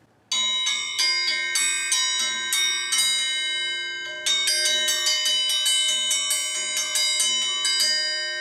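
Hand-forged triangle dinner bell rung by rattling its forged clanger quickly around the inside, about three strikes a second, with long metallic ringing. It pauses briefly about halfway through, starts again, then rings out and fades near the end.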